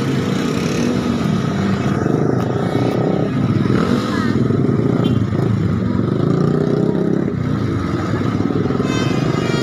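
Road traffic close by: vehicle engines running loudly and steadily, their pitch wavering up and down as they pass.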